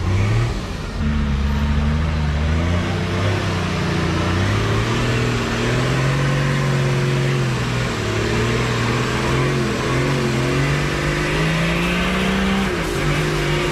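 A 4WD's engine revving under load as it crawls up a steep, rutted mud climb, its pitch rising and falling slowly as the driver works the throttle.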